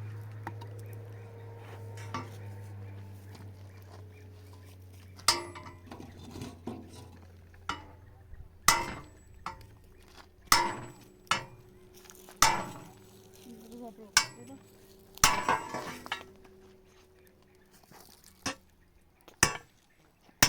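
Irregular metallic clanks and knocks, about a dozen spread over the second half, some ringing briefly after the strike. A low steady hum fades out during the first half.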